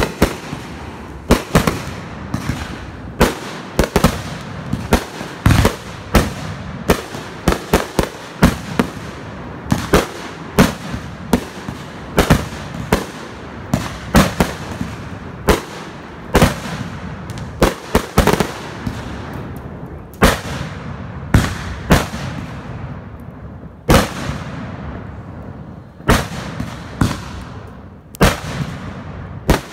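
Consumer aerial fireworks going off in quick succession: sharp bangs one or two a second, each trailing off, over a continuous crackling haze. The bangs come further apart in the last several seconds.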